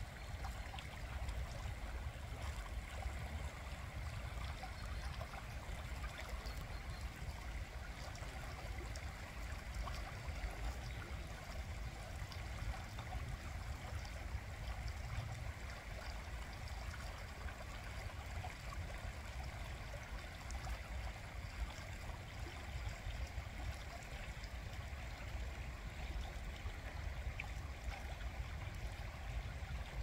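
Shallow river water running over stones in a steady, unbroken rush.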